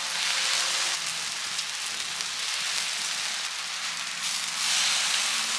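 Garlic butter sizzling on a hot gas griddle as split hoagie rolls toast cut side down. The hiss is steady, and it grows louder just after the start and again near the end as more rolls go down.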